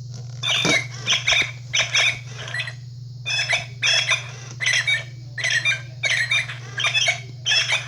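Generation 2 Gemmy singing robin toy in its chirping mode: a run of short, high bird chirps, about two a second with a brief pause about three seconds in, over a steady low hum.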